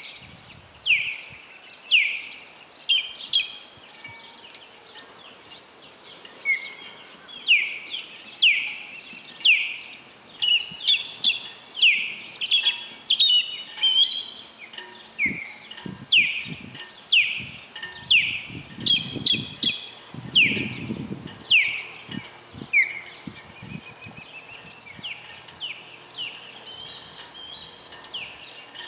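Osprey calling: a long series of short, high, whistled notes that slur downward, about one or two a second, growing fainter toward the end.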